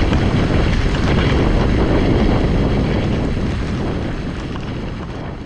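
Strong wind buffeting the microphone over open water, a dense rushing noise that fades away over the last couple of seconds.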